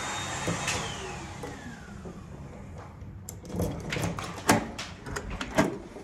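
A vacuum cleaner running in the corridor, its motor whine sliding down in pitch as it is switched off and winds down over a couple of seconds. After that come sharp clicks and knocks as a hotel room door's lever handle and latch are worked.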